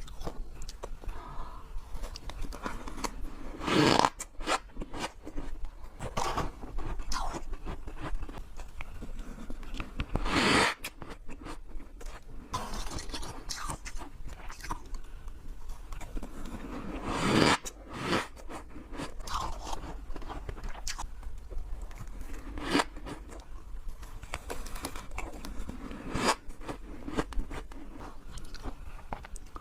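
Freezer frost being scraped loose and eaten: repeated icy scrapes and crunchy bites and chewing, with a few louder scrapes or crunches several seconds apart.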